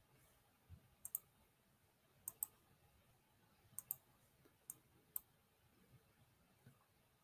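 Computer mouse clicking: a handful of sharp clicks, three of them in quick pairs, over a near-silent room hush.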